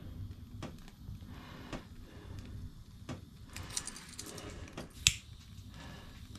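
A handheld lighter clicking several times while lighting candles, with one loud sharp click about five seconds in. A short run of light metallic jingling comes just before it.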